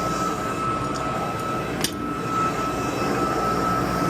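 Gas-fired boiler burner running steadily on low fire, a constant roar of flame and blower with a thin steady whine above it. One sharp click about two seconds in.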